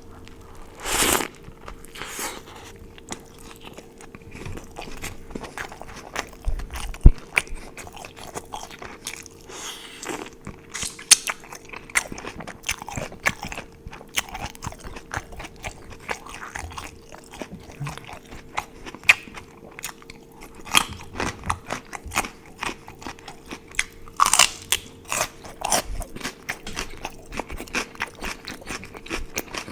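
Close-miked eating: crunchy bites and chewing, with irregular crackling crunches and a few louder bites, over a faint steady hum.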